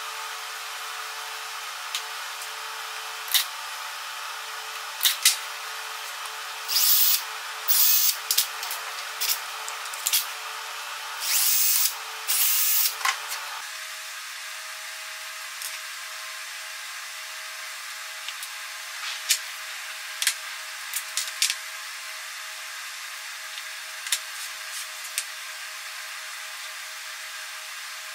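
Four short bursts of a power tool, each about half a second, between about 7 and 13 seconds in, over a steady workshop hum. After that come scattered light clicks and taps of tools being handled on a workbench.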